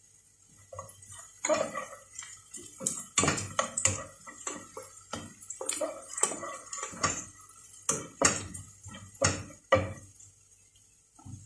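A spatula scraping and knocking against a stainless steel saucepan while minced garlic is stirred, in quick irregular strokes that stop near the end.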